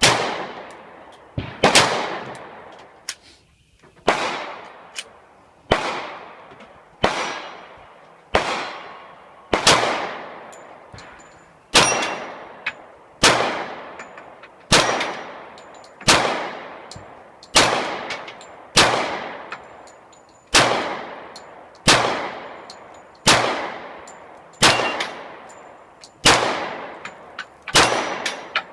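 Slow, steady pistol fire at steel targets: about twenty shots, one every second and a half or so, each followed by a decaying echo and a faint ring from the struck steel plate.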